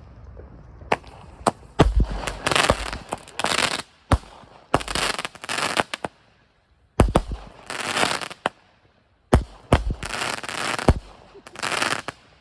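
A consumer firework cake (9-shot Kaboom 'Danger Zone', yellow tails to spring-flower bursts) firing its shots one after another. Each shot is a sharp bang followed by about a second of loud hissing, crackling burst, with short gaps between groups of shots.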